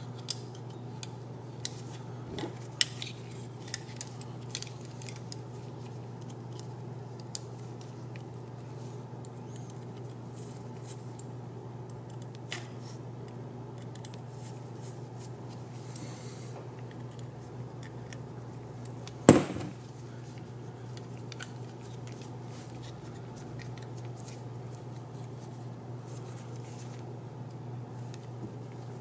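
Small scattered clicks and ticks of carbon-fibre frame plates, arms and small metal screws being handled and driven in with a hex driver, with one louder knock about two-thirds of the way through, over a steady low hum.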